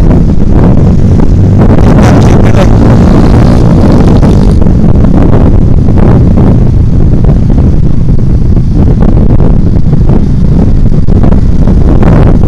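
Loud, steady wind rush on the microphone of a moving motorcycle, over the hum of its engine and tyre noise on the road.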